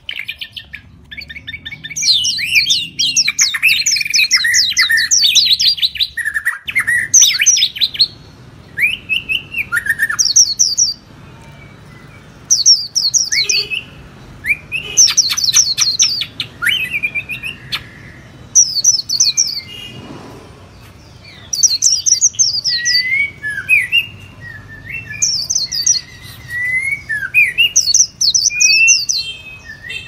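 Several small songbirds singing and chirping: repeated bursts of fast, high trills a few seconds apart, with lower whistled notes that rise and fall in the last third.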